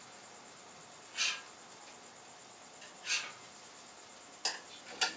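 Spatula scraping and tapping on a flat-top griddle as pancakes are lifted and turned: two short scrapes about two seconds apart, then two sharp clicks near the end.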